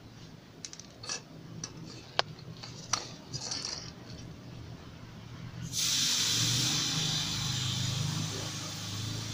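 A few small clicks as a mini air pump's hose connector is worked onto a motorcycle tyre valve, then, about six seconds in, a sudden loud hiss of air at the valve that slowly eases off.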